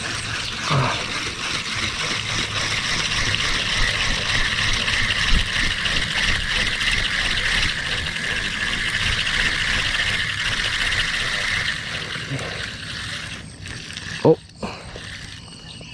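Spinning reel being cranked to wind in line: a fast, fine whirring tick of the reel's gears that fades out about 13 seconds in. A short, louder sound follows near the end.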